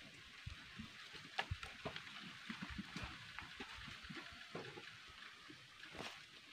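Wood cooking fire burning with a soft steady hiss and scattered light crackles and ticks.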